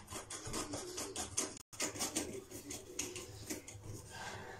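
Quick, irregular scratching and clicking of a utility knife blade working against the floor around a pipe, several strokes a second, broken by a momentary gap about a second and a half in.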